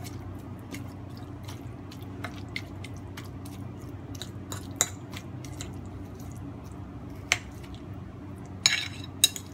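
Metal fork working minced pork in a ceramic bowl: soft squishing with irregular light clicks as the tines hit the bowl, and a few sharper clinks near the end, over a low steady hum.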